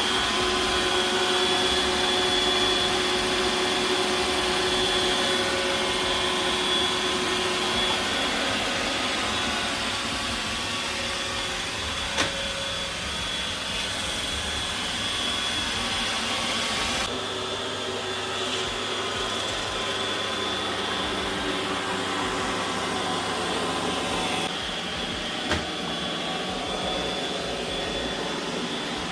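iRobot Roomba i7+ robot vacuum running as it cleans: a steady whir with a high whine, its sound shifting about halfway through, and two brief clicks.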